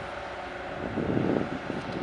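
Wind buffeting the microphone in uneven gusts, growing stronger about a second in, over a steady rushing noise.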